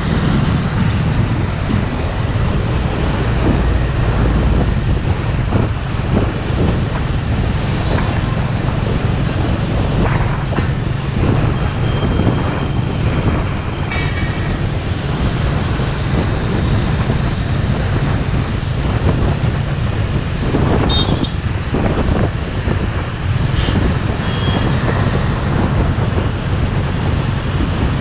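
Wind buffeting the microphone of a camera travelling along a road, over steady low engine and road noise from the ride and the traffic around it.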